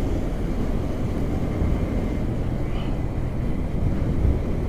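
Yamaha R15M's single-cylinder engine running steadily while the motorcycle is ridden, mixed with low wind rumble on the microphone.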